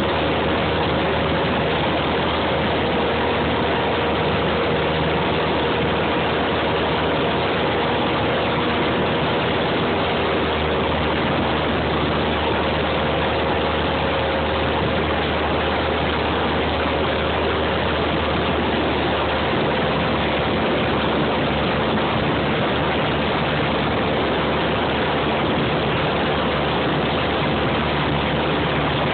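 Cabin noise of a single-engine high-wing light aircraft in flight, heard inside the cockpit: a steady drone of the engine and propeller under a dense rush of air noise.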